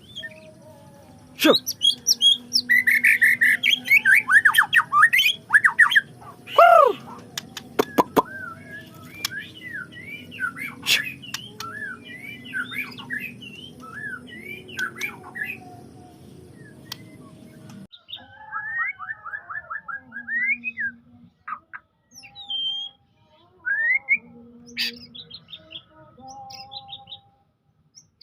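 White-rumped shama (murai batu) singing a long, varied song of quick whistled notes, sweeping slurs and chattering trills. A steady background hum behind it cuts out suddenly about 18 seconds in, where the recording is spliced, and the song carries on.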